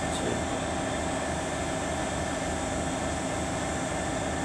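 Freightliner Class 66 diesel locomotive's EMD two-stroke V12 engine running with a steady drone.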